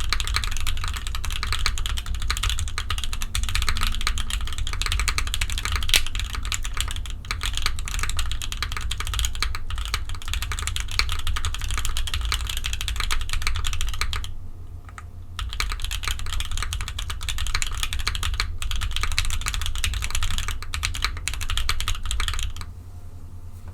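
Fast, continuous typing on a custom mechanical keyboard: a gummy O-ring-mounted Fjell with lubed JWK Popus linear switches on a polycarbonate plate, giving a dense run of keystroke clacks. The typing pauses briefly about fifteen seconds in and stops shortly before the end.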